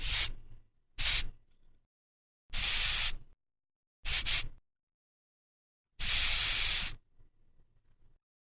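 Aerosol spray paint can sprayed in separate bursts of hiss: a short spray, another short one about a second in, a longer one of nearly a second, two quick puffs in a row, then a spray of about a second.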